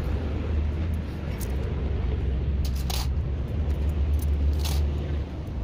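A steady low rumble with a few sharp clicks of steel valve springs being handled and set onto a diesel cylinder head.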